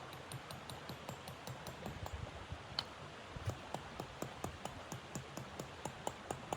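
A rapid, fairly regular series of light clicks, about four to five a second, with a few louder ones, over a steady hiss.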